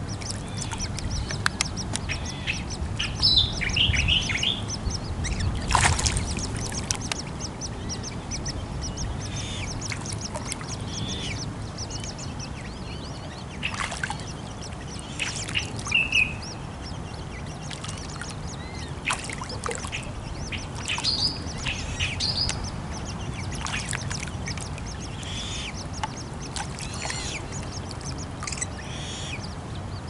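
Birds calling: runs of short, high chirps, with louder, harsher calls every few seconds, over a low steady rumble.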